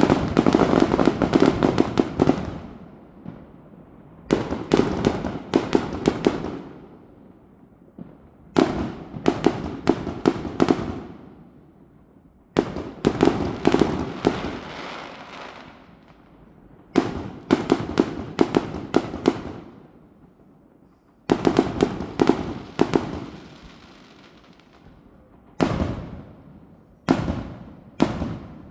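Fireworks going off in clusters of rapid crackling bangs, each cluster lasting about two seconds, about every four seconds, coming closer together near the end.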